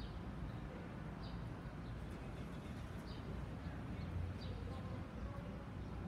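Steady low background rumble with faint short high chirps about every one to two seconds.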